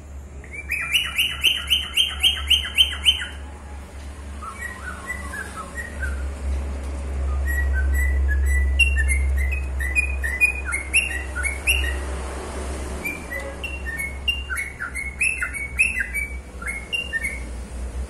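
Lutino cockatiel whistling. It opens with a quick run of about ten sharp repeated notes, then gives a long string of varied, rising whistled chirps, over a steady low hum.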